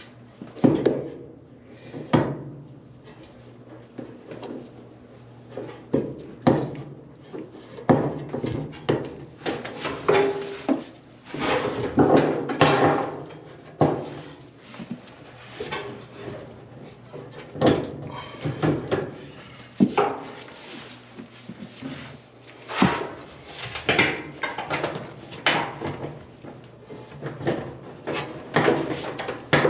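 Hands working on a clothes dryer: irregular knocks, clatters and scrapes of tools and metal dryer parts being handled, with busier bursts of clatter every few seconds.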